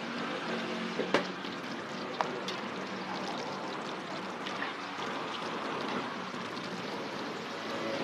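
Dough pieces deep-frying in a wide wok of hot oil, a steady sizzle and bubble, with two sharp clicks about one and two seconds in.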